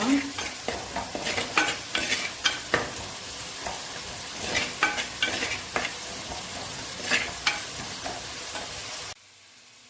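Onion-tomato masala with spices sizzling in hot oil in a pan, while a spoon stirs it with frequent scrapes and knocks against the pan. The sound drops away suddenly near the end.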